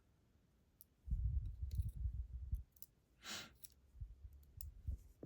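Handling noise from small lock parts and tools being worked by hand: low knocks and bumps, scattered light clicks, and a short hiss about three seconds in.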